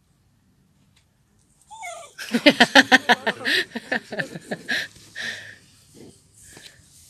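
A dog whining. A short wavering whine comes about two seconds in, then a loud fast run of yelping whines, about five a second, which tails off over the next few seconds.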